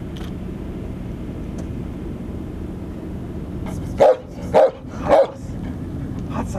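A leashed German Shepherd military working dog barks three times in quick succession, about half a second apart, starting about four seconds in. Before the barks there is only a steady low background rumble.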